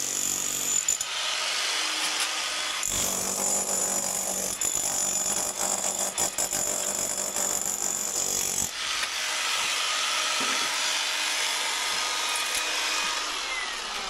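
Milwaukee Fuel cordless rotary hammer chiselling render and brick off a porch pillar: a dense, steady hammering with a high motor whine that drops out for about two seconds a second in and stops near nine seconds in. Rough chiselling and crumbling-masonry noise carries on for a few seconds after that.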